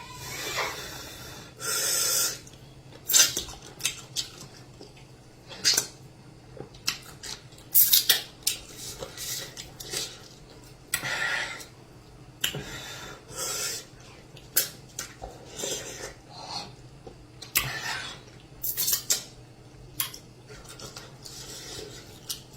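Close-miked eating of amala and soup: irregular clinks and scrapes of dishes and utensils, mixed with short wet eating sounds.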